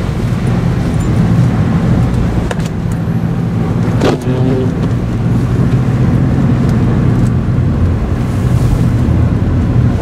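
A Honda car driving on a snow-covered road, heard from inside the cabin: a steady low engine and tyre hum. A brief click with a short tone cuts in about four seconds in.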